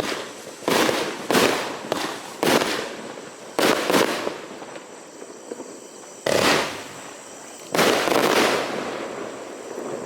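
Consumer firework battery (cake) firing its last shots: about eight sharp bangs, each trailing off, coming further apart toward the end, with the last one about eight seconds in and then dying away.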